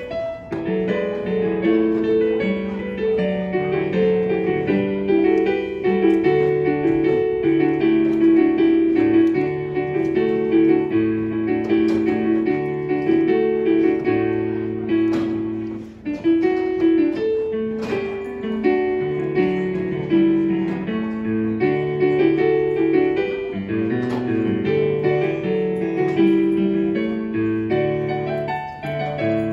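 Keyboard music playing the closing voluntary of a church service: a slow piece of held chords and notes that change every second or two.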